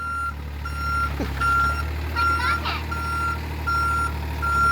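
Bobcat mini excavator's travel alarm beeping evenly, a little faster than once a second, over its diesel engine running: the machine is moving.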